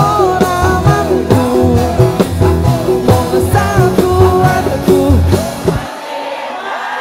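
Live band with male lead singer playing a Javanese-language pop song through the PA, with drums, bass and electric guitar under the vocal. About six seconds in, the sound system cuts out suddenly: the amplified band and bass drop away at once, leaving the crowd singing along unamplified.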